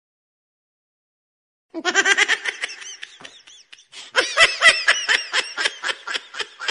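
Dead silence for nearly two seconds, then a person laughing hard in quick repeated bursts, getting louder about four seconds in.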